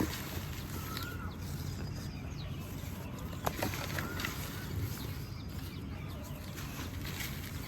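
Water trickling over small pebbles in a steady hiss, with a few sharp ticks. A few short bird chirps sound over it.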